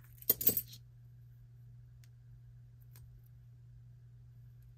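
Metal costume jewelry clinking as pieces are handled: a sharp click and short jangle about half a second in, then a few faint ticks.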